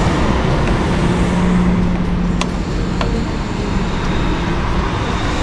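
Car engine running steadily with a low hum, and two light clicks about two and a half and three seconds in.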